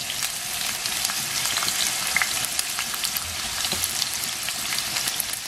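Sliced onion frying in hot vegetable oil in a stainless steel pot: a steady sizzle with many small crackles.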